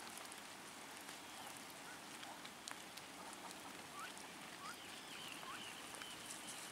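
Female mallard ducks feeding in a rain puddle and wet grass: a few faint dabbling clicks and several short, soft rising chirps over a steady hiss.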